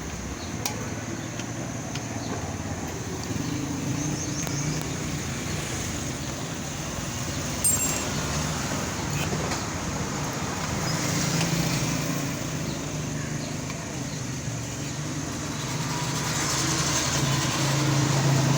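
Steady road traffic noise, with one sharp click about eight seconds in.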